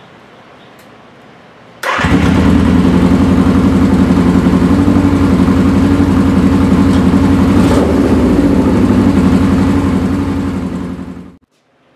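Suzuki GS550's air-cooled inline-four engine running steadily at idle. It comes in abruptly about two seconds in and dies away about half a second before the end.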